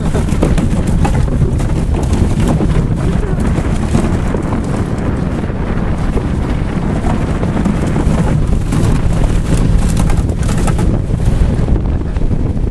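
Wind buffeting the microphone inside a moving car whose windshield is blown out, over a steady low rumble of the car's engine and running gear, with frequent small jolts and rattles.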